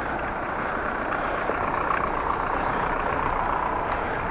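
Steady street-traffic and riding noise on a bicycle-mounted action camera: a low, even rumble of vehicle engines mixed with wind and road noise as the bike moves off from a traffic light.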